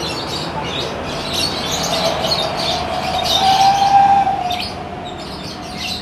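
Many caged lovebirds chirping, a dense chatter of short high calls. In the middle a single drawn-out tone rises slightly and falls back, louder than the chirping.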